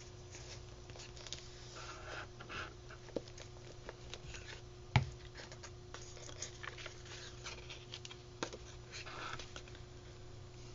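Paper rustling and hands rubbing and pressing sheets of paper down onto a journal page while gluing them in with a glue stick, with one sharp knock about five seconds in. A low steady hum sits underneath.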